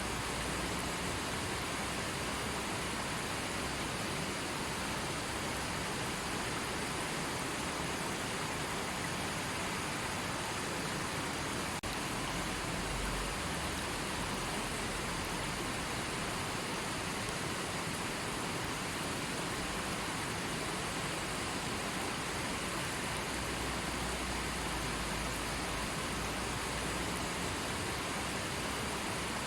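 River water rushing over rocks, a steady, even wash of sound.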